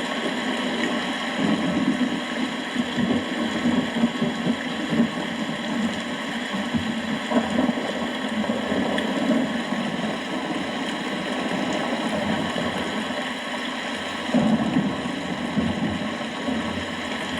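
Steady rain with low, rolling thunder rumbling unevenly underneath, swelling briefly near the end.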